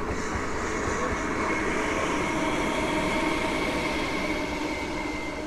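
A train running by: steady rail and running noise with thin high tones held over it.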